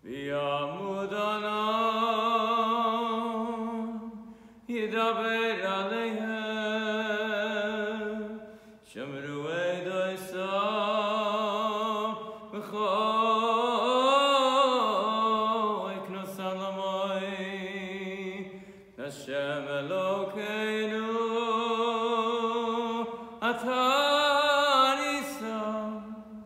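A cantor's solo male voice singing an unaccompanied cantorial chant: long held notes with vibrato that rise and fall in pitch, in several phrases separated by short breaths.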